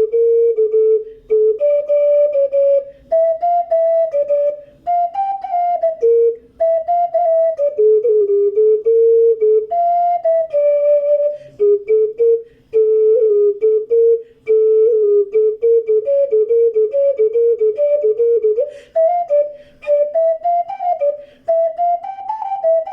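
Ceramic triple bass ocarina in C playing a melody, one pure note at a time with short breaks between phrases. The notes move more quickly in the second half and climb higher near the end.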